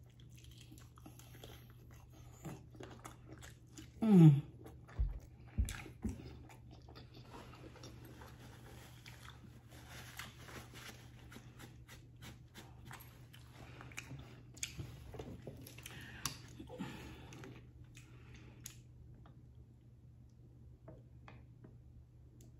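Close-miked chewing and smacking of meat eaten off the bone, with many small wet mouth clicks. About four seconds in there is a short hummed sound from the eater, followed by two low thumps.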